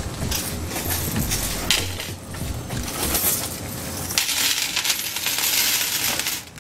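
A bag of about a hundred pennies poured out onto a glass shop counter: a few short clinks first, then from about four seconds in a dense, steady clatter of coins spilling onto the glass that stops suddenly just before the end.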